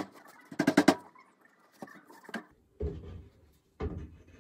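A quick run of sharp knocks and clicks, then two dull thumps, each trailing a short low rumble.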